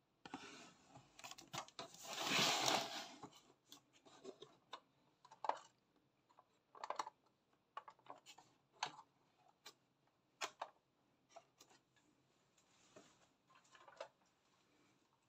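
Hands handling a cardboard toy box holding a model bus: a scraping rustle about two seconds in, then scattered light taps and clicks.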